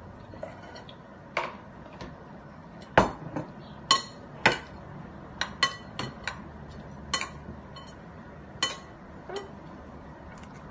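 A metal spoon clinking and scraping against a plate while scooping up food: about fifteen irregular sharp clinks, several ringing briefly.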